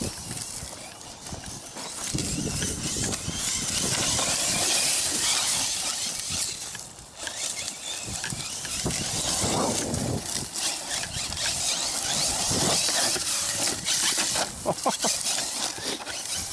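Electric 1/8-scale RC truggy driving over rough, rocky ground: tyres crunching over gravel and the chassis knocking and clattering over bumps, with a run of sharp knocks near the end.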